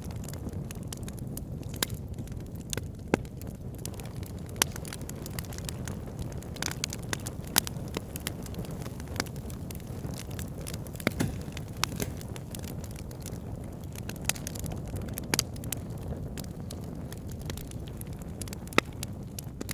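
Wood fire burning in a fireplace: a steady low rush of flames with irregular sharp crackles and pops from the burning logs.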